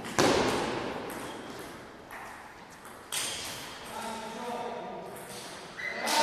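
Table tennis rally in a large gym hall: a loud, sharp crack of bat on celluloid ball just after the start, a few lighter ball ticks, and another sharp hit about three seconds in, each trailing off in the hall's echo. Voices follow near the end.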